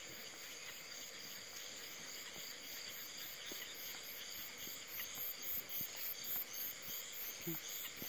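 Night chorus of crickets and other insects: steady high-pitched trilling with an even pulsing about three times a second, growing louder about halfway through.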